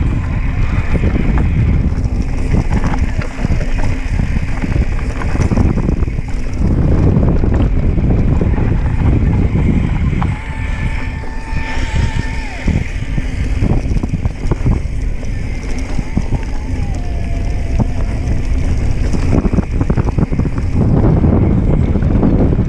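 Wind buffeting the microphone over the rattle and knocks of a mountain bike riding fast downhill on a rough dirt trail.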